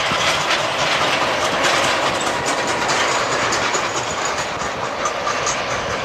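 Airbus A320-214 airliner's two CFM56-5B turbofan engines running steadily as it rolls past on the ground, a loud, even jet noise.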